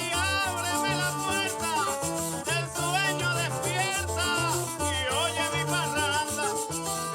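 Background music: a Puerto Rican Christmas song with singing over strummed strings and shaken maracas in a steady Latin beat.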